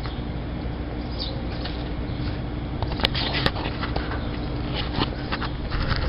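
Outdoor air-conditioner condenser units running with a steady low hum. Two sharp clicks come about three seconds in.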